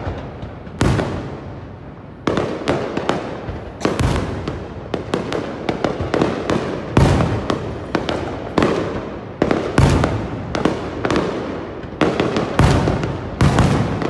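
Fireworks display: rapid, irregular sharp bangs and crackles, each trailing off. Heavier booming bursts come every couple of seconds.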